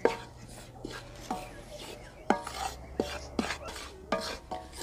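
Wooden spoon stirring and scraping wheat flour as it roasts in ghee in an aluminium karahi, with several irregular knocks of the spoon against the pan that make the metal ring briefly.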